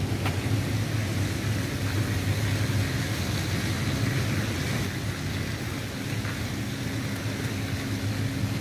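Steady drone of running machinery: a low engine-like hum holding a constant pitch, under an even hiss.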